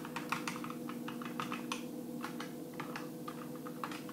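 Typing on an A4Tech Bloody B975 keyboard with optical-mechanical switches: a fast, irregular run of loud key clicks and clacks, several presses a second.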